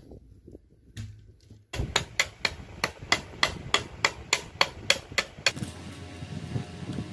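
A large knife blade chopping at a thin bamboo stick laid on a wooden board, trimming it down: a fast, even run of sharp chops, about four a second, that begins about two seconds in and stops abruptly near the end.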